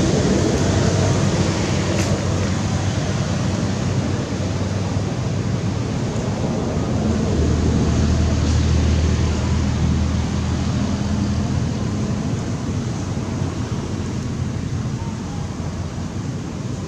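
Steady outdoor rushing noise with a low rumble that swells about halfway through and eases off again.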